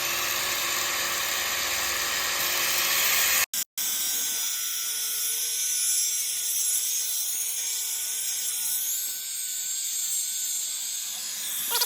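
Angle grinder cutting a steel exhaust pipe: a steady high grinding hiss with the motor's whine. It breaks off briefly about three and a half seconds in, then carries on with a steadier whine.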